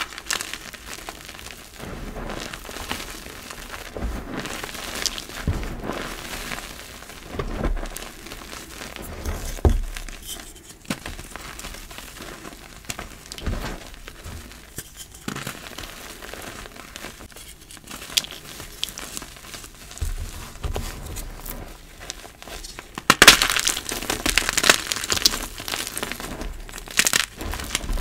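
Hands crushing crunchy blocks of reformed gym chalk into loose powder: a steady run of dry crunches and crackles, with a louder, denser burst of crunching near the end.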